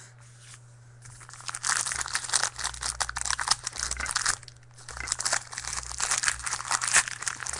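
A foil trading card pack being torn open and its wrapper crinkled, in two long stretches of crackling starting about a second in, with a short break just past the middle.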